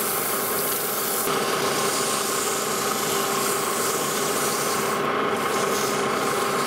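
Emery cloth strip pressed against a flange spinning in a Lodge & Shipley metal lathe, polishing it: a steady scratchy hiss over the lathe's running hum. The hiss eases off briefly about five seconds in, then returns.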